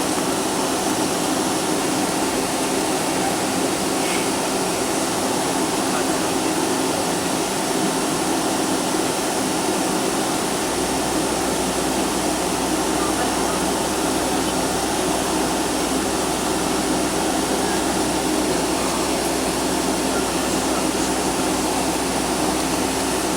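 Steady cabin noise inside a Boeing 757-200 in flight after takeoff: an even rush of jet engine and airflow with a constant hum. A deeper low hum joins about halfway through.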